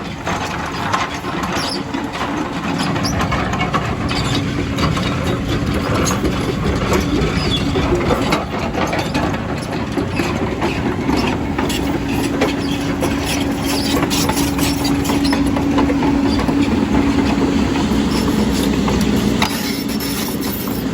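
Heavy tracked earthmoving machine working, its diesel engine running under load with repeated metal clanking. The engine gets louder about two seconds in.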